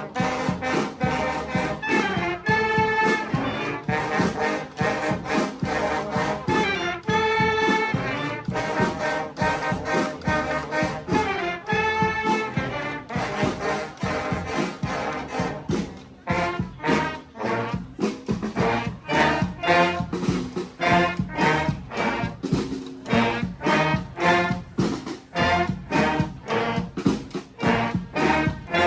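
A brass street band playing a funk tune. The horns hold long chords a few times in the first half, then switch to short, punchy repeated notes from about halfway, over a steady drum beat.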